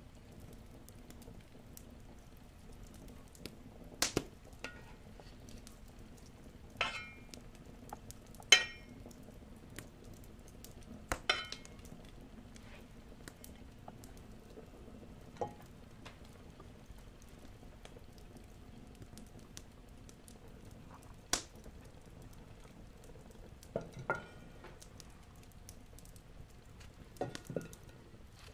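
Butter melting in a cast-iron frying pan with a faint sizzle, broken by a spatula knocking and scraping against the pan every few seconds, some knocks ringing briefly. Near the end, a few quick knocks as potato slices go into the hot butter.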